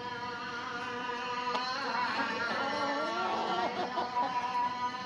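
Background music: steady held tones with a pitched line sliding up and down over them in the middle.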